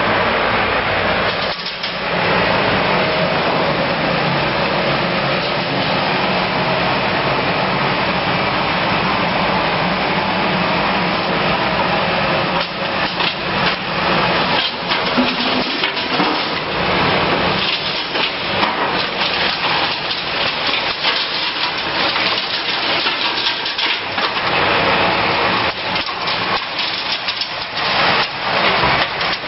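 YIHONG YH-B1250 battery sweeper running, its motors and rotating brushes making a steady noise, with frequent clattering knocks as bottles, stones and litter are swept up; the knocks come thicker from about halfway on.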